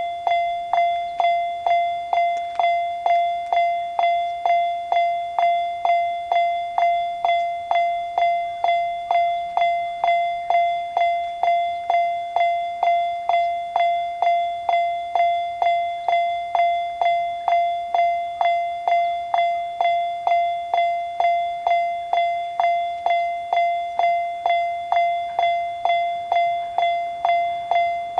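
Japanese level crossing warning alarm ringing its 'kan-kan' strokes, one bell-like tone repeated evenly at just under two strokes a second, each striking sharply and fading. It signals that a train is approaching the crossing.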